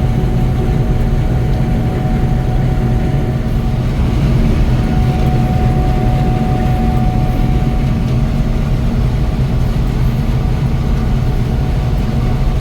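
Gleaner N6 rotary combine running steadily while harvesting wheat: a deep engine and threshing drone with a faint steady whine on one pitch that grows a little stronger around the middle.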